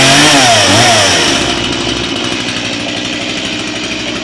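Chainsaw engine just started, revving up and down twice in the first second or so, then settling into a steady idle.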